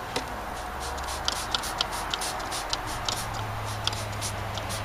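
Irregular light clicks and ticks from a spray bottle of cleaner and a clear plastic panel being handled. A low steady hum comes in about three seconds in.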